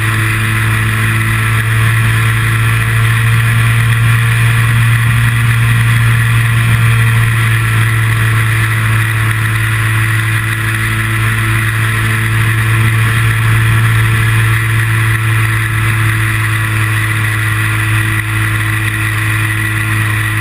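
Steady drone of a small aircraft's engine and propeller in level flight, heard close from an onboard camera, with a strong low hum and wind rush, unchanging throughout.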